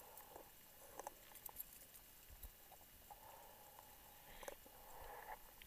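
Near silence underwater, with a few faint soft hisses and small clicks.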